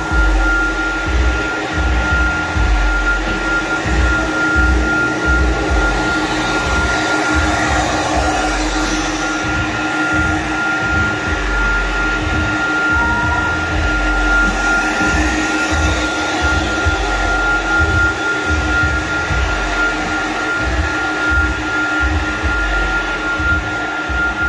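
Carpet-cleaning extraction machine's vacuum motor running steadily, with a constant high whine and an uneven low rumble underneath.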